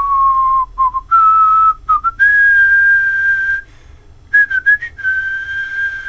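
A person whistling a few long held notes that step up in pitch, with short breaks between them, ending on one long steady note.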